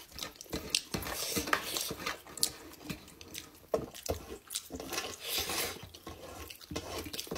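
Close-up eating sounds from people eating by hand: wet chewing and lip smacks, with irregular soft clicks as fingers work millet dhido and soup on a metal plate.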